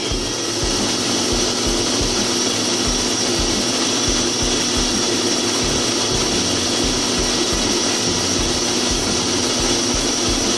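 Electric mixer grinder (mixie) blending apple pieces, nuts and milk for a milkshake. It starts up right at the beginning and then runs steadily with a constant hum and high whine.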